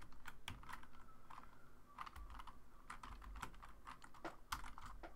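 Typing on a computer keyboard: a faint, irregular run of keystroke clicks.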